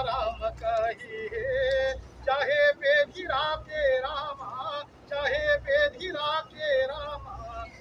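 Male voice singing a Hindu devotional chant, with long held notes that waver in pitch.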